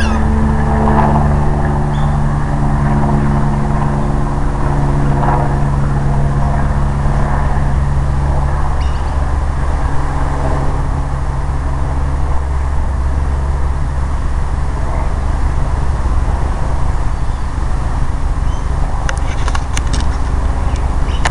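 A steady, loud, low motor drone with a few humming tones that fade out about halfway through.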